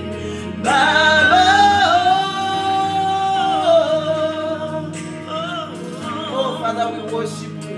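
Gospel worship music: a voice sings a long held note starting about a second in, then shorter wavering phrases, over steady sustained backing chords.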